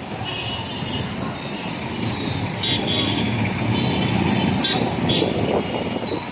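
Busy street traffic: vehicle engines running and passing, with several short horn toots.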